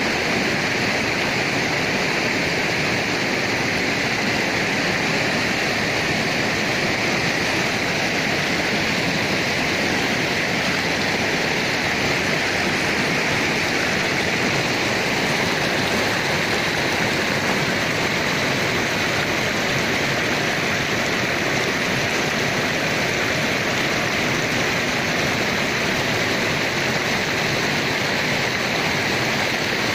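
Clear mountain river rushing over boulders and splashing down small cascades, a steady, even rush of water.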